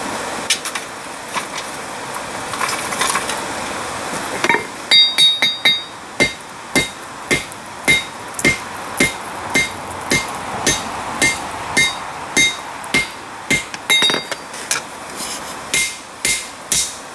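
A steady rushing noise from the forge's air blower. About four and a half seconds in, a hand hammer starts striking red-hot steel plate on a Peter Wright anvil, tapering the end of the plate: a run of even blows a little under two a second, each ringing off the anvil.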